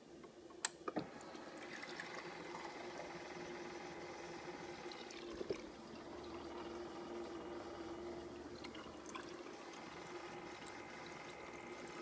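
Refrigerator door water dispenser running water into a drinking glass, a steady flow over a constant hum. Sharp clicks as the glass meets the dispenser paddle about a second in, and another click near the middle.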